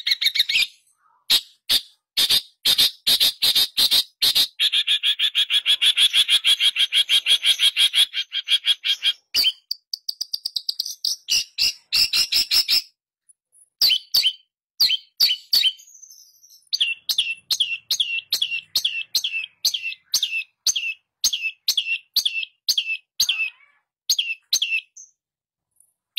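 Long-tailed shrike singing loudly: fast runs of sharp, harsh notes, a long rapid trill from about four seconds in, more chattering, then a steady series of clipped notes about two a second through the second half.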